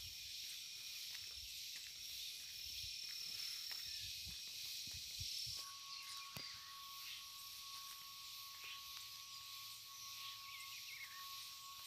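Insects chirring steadily, with a continuous high buzz; about halfway through, a lower steady note comes in and holds. Faint footfalls on a dirt path underneath.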